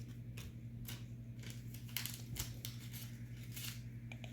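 Baseball trading cards being handled and slid against one another as a pack is leafed through: light, scattered flicks and rustles. A faint steady hum runs underneath.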